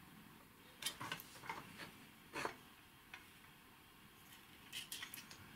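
Faint clicks and taps from a thin tool and fingers handling the stacked circuit boards of a disassembled instrument, a handful of short ticks scattered over a few seconds.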